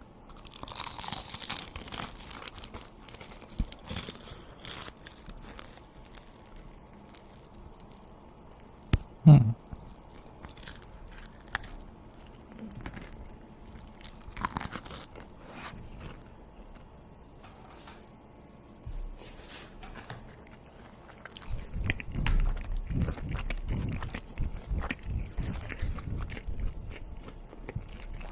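Close-up eating sounds: crunchy bites and chewing, made up of many short crunches. About nine seconds in there is one brief, loud sound falling in pitch. From about twenty seconds in, the crunching chewing gets denser and louder.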